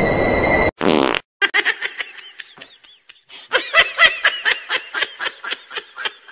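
A short fart-like sound about a second in, then a person laughing hard in quick repeated bursts.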